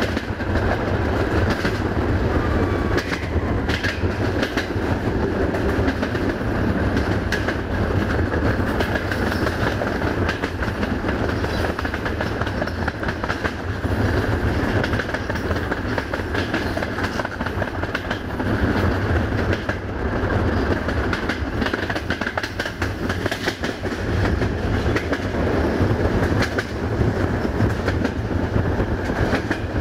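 VT614 diesel multiple unit running along the line, heard from aboard: a steady rumble with the wheels clicking over rail joints all through.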